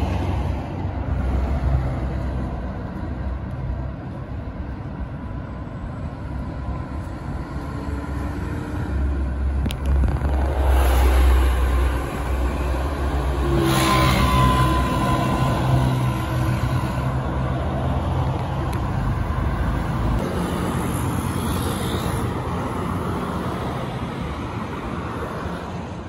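Road traffic passing on a multi-lane highway: a steady mix of engine and tyre noise that swells twice as heavier vehicles pass close by, about ten and fourteen seconds in, the second of them a large coach bus.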